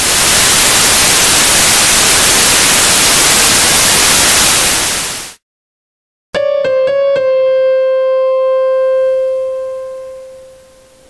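Loud hiss of white-noise static for about five seconds, cutting off suddenly. After a second of silence, about four quick keyboard notes step down onto one held note that slowly fades away.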